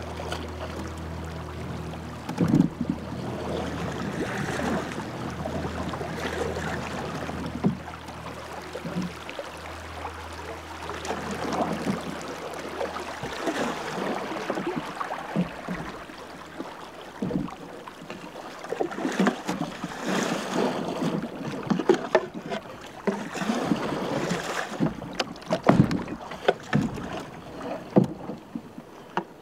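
Canoe paddle strokes splashing irregularly, with water sloshing and rushing along the hull, as a canoe is worked through shallow, rocky swift water. A low rumble underneath stops about halfway through.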